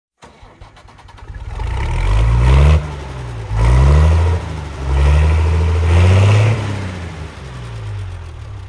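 Engine starting up abruptly and revving, its pitch rising and dropping back in three loud surges before settling lower.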